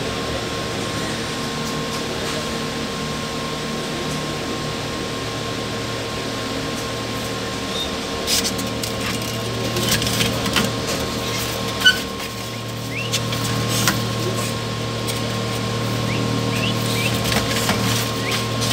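Steady hum of the incubator's fan and motor. From about eight seconds in it is joined by clicks, knocks and light rattles of a hand handling the foam-and-metal-rod hatching cage, with a sharp knock near the middle and a few short high chirps.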